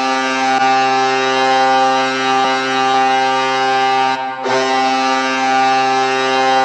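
Colorado Avalanche arena goal horn sounding: a loud, steady low blast with a brief break about four seconds in, then a second blast.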